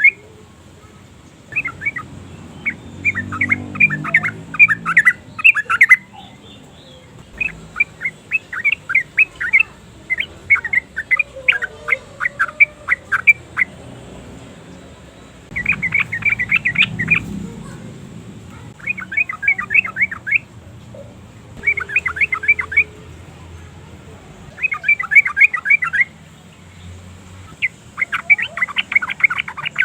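Yellow-vented bulbul calling in repeated fast bursts of sharp chattering notes. Each burst lasts a second or two, with short pauses in between.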